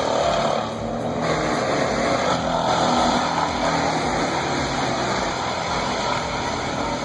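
Large wood chipper running under load: an engine sound beneath a dense, steady grinding noise, starting abruptly.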